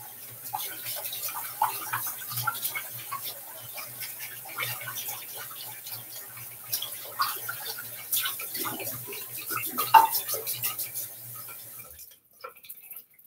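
Shaving gear being rinsed and handled at a bathroom sink: running water with many small irregular clicks and knocks. It stops about a second before the end.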